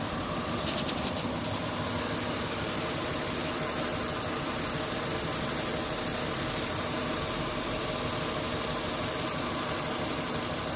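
2001 Honda Odyssey's 3.5-litre V6 idling steadily while misfiring on cylinder 4 from a bad coil pack, so it runs on five cylinders. A short burst of clicks comes about a second in.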